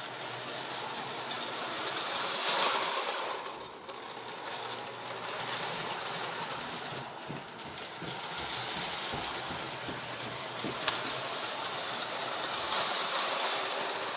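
A toy train running on its track, a steady whir and rattle of its small motor and wheels that gets louder and fainter by turns.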